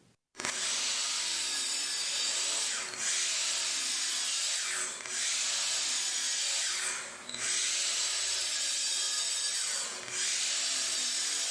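Miter saw running and crosscutting maple boards to length: a steady cutting noise over the motor, dipping briefly four times.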